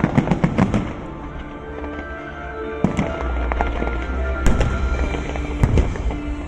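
Fireworks going off: a dense run of crackling bursts at the start, then single heavy bangs about three seconds in, again about four and a half seconds in, and near the end, over music playing steadily.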